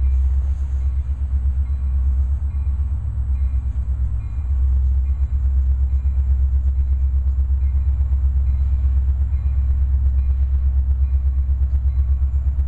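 Low, steady rumble of approaching diesel locomotives, pulsing quickly and evenly, with no train yet in sight.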